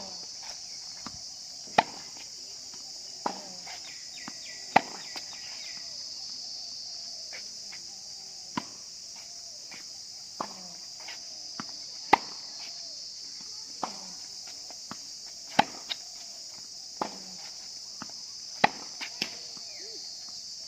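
Tennis balls struck by rackets and bouncing on the court, sharp pocks coming every second or two at an uneven pace, over a steady high-pitched drone of insects.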